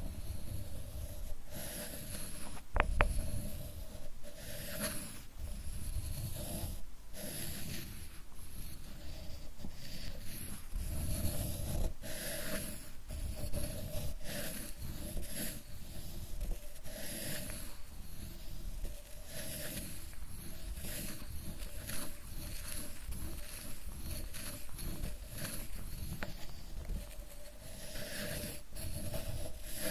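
Sumi ink stick rubbed back and forth on a suzuri inkstone: a continuous run of rubbing strokes, with a brief sharp click about three seconds in.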